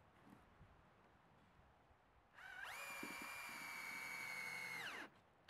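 Cordless drill-driver driving a screw into a softwood 2x3 stud: about two and a half seconds in the motor whine rises quickly, holds steady for about two and a half seconds, then winds down.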